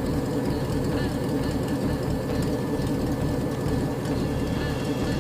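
Pontiac Firebird's 5.3-litre V8 idling steadily, a low even rumble.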